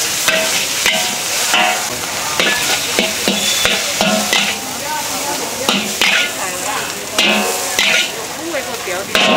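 Food sizzling as it is stir-fried in a wok, with a metal spatula repeatedly clanking and scraping against the pan.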